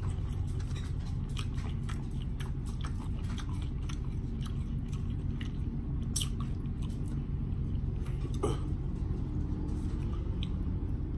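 A person chewing mouthfuls of omelet, with scattered wet mouth clicks and a sharper click about eight seconds in, over a steady low hum.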